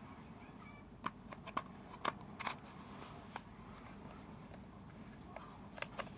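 Scattered light clicks and taps from handling a cordless impact wrench and its battery pack, about eight short sharp clicks spread over a few seconds.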